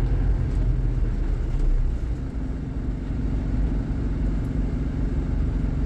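Isuzu Panther's diesel engine running steadily in slow, crawling traffic, a constant low hum with road noise and no revving.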